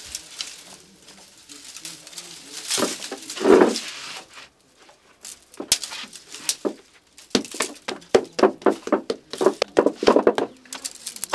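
Hand work at a wood-fired clay bread oven: quick sharp slaps and snaps, several a second, in the second half, with one louder rustling burst about three seconds in.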